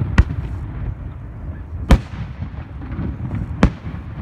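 Aerial firework shells bursting: three sharp bangs, a little under two seconds apart, over a steady low rumble.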